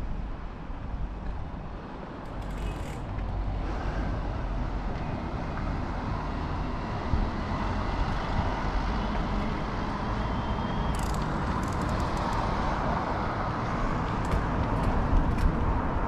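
Road traffic on nearby streets, the tyre-and-engine noise swelling in the second half as a car goes by, with wind rumbling on the microphone.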